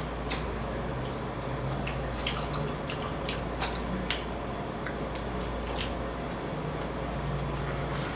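Close-up wet eating sounds from boiled crawfish and shrimp: scattered smacks, sucks and clicks of chewing and slurping the juice. A steady low hum runs underneath.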